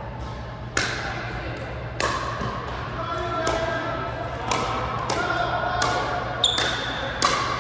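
Pickleball paddles hitting a plastic pickleball back and forth in a rally, with the ball bouncing on the hard court: sharp pops about once a second, each followed by a short echo.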